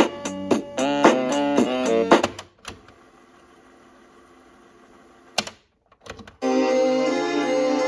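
Music played from a cassette on a Sony CFM-10's small built-in speaker: plucked notes that stop a little over two seconds in, leaving a faint hiss. About five and a half seconds in the cassette keys click a few times, and different music with held chords starts.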